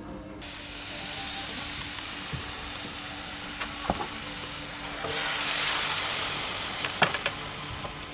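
Sliced beef and leek sizzling in a hot iron sukiyaki pan greased with beef fat, starting abruptly. The sizzle grows louder about five seconds in as the sukiyaki sauce goes into the pan, with a few sharp clicks.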